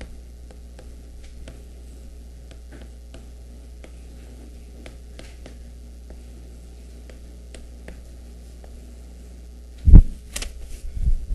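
Steady low electrical hum under faint, scattered ticks of writing on the board, then two heavy low thumps with a short sharp knock between them near the end.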